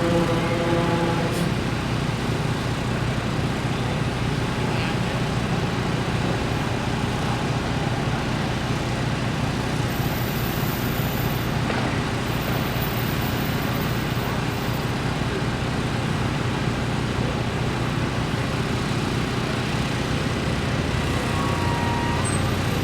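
Steady road traffic noise: a continuous wash of passing vehicles over a low engine hum.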